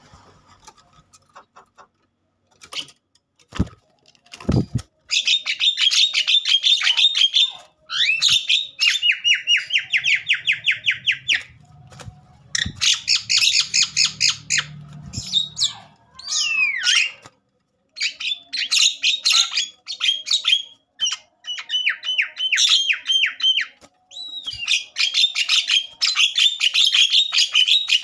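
Javan myna (jalak kebo) in agitated full song, giving bursts of rapid, harsh repeated notes and trills with short pauses between them. Two sharp knocks about four seconds in.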